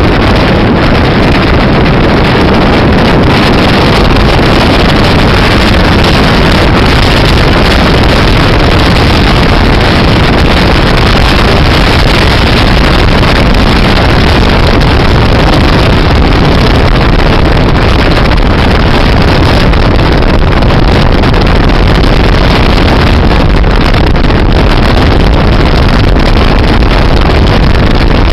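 Steady, loud rushing of a car driving at speed on a highway: wind and road noise heavy on the microphone, with no clear engine note.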